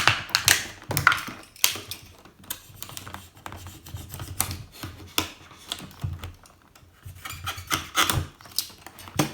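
Irregular clicks, taps and scraping of a plastic toy playset and its cardboard packaging being handled and pried at while the heavy-duty zip ties holding it in are worked on. The sounds ease off for a moment about two-thirds of the way through, then pick up again.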